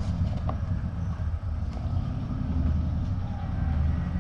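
Steady low rumble, with a few faint light clicks over it.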